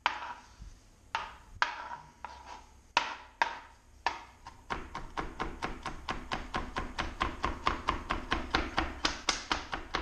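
Chef's knife mincing garlic on a cutting board: a few separate chops of the blade against the board, then from about five seconds in a fast, even run of chops, about five a second.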